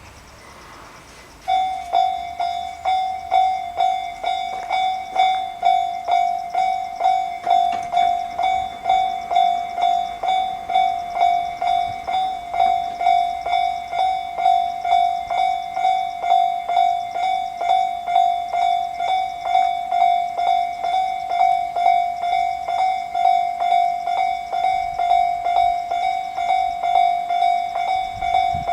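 Japanese railway level-crossing electronic warning bell starts ringing about a second and a half in. It gives an even, repeating ding on one steady pitch, in the Tobu Tojo Line style ("Tobu sound C"), and sounds its warning that a train is approaching.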